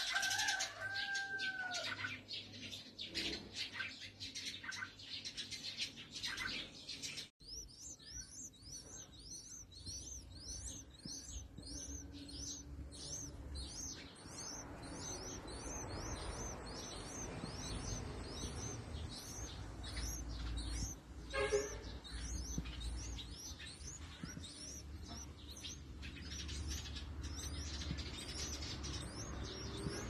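Nestlings begging from the nest: a rapid, even series of thin high chirps, two or three a second, from about seven seconds in.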